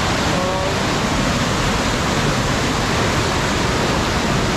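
Monsoon-swollen waterfall and torrent: a loud, steady rush of floodwater pouring over the rocks.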